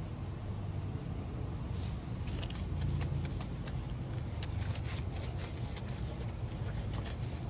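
A wash mitt with little fingers scrubbing a wet, cleaner-coated polished wheel: a rough rubbing and scraping that starts about two seconds in, over a steady low rumble.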